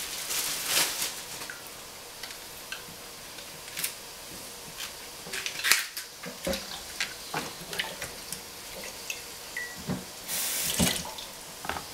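Kitchen sink tap running in short spurts and water splashing as celery stalks are rinsed, with drips and small knocks in between. The longest rush of water comes near the end.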